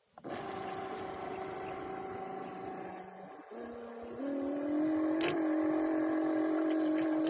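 Small electric motor of a model boat whining steadily, then stepping up louder and slightly higher in pitch about four seconds in as it speeds up.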